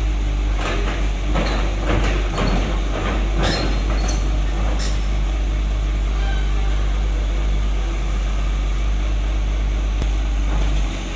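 Caterpillar 320 excavator's diesel engine running steadily while the machine swings round, with a series of metal clanks and knocks in the first five seconds or so.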